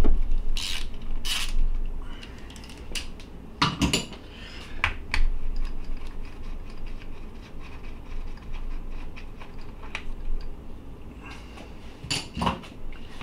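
Metal clicks and clinks of a long-handled socket wrench on a 12 mm detent-spring bolt in a Honda K-series transmission case, as the bolt is broken loose and then turned out by hand. The loudest clinks come at the very start, about four seconds in, and again near the end, with quieter ticks between.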